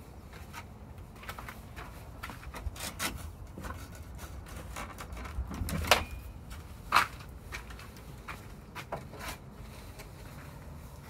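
Footsteps crunching on a dirt and gravel garden path, irregular and uneven, with two louder sharp knocks about six and seven seconds in.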